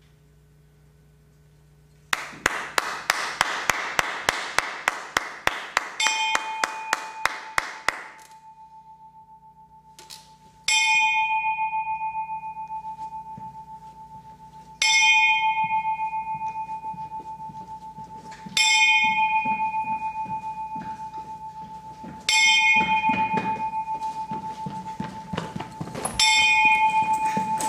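A bell-like chime struck five times, about four seconds apart, each stroke ringing out and fading. Before it, about six seconds of sharp regular clicking, about two and a half clicks a second, over a hiss.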